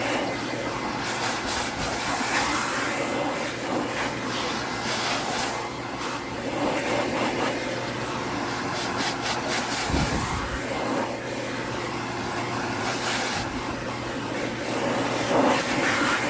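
Electric air blower running steadily, its hum overlaid by surges of rushing air as the jet is forced through an air purifier filter to blow out trapped bird feathers and dander.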